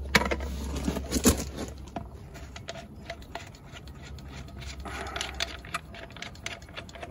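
A plastic transformer box and its mounting hardware handled by hand at an antenna bracket: scattered light clicks and taps, with two louder knocks in the first second and a half, over a low steady rumble that fades out about two-thirds of the way through.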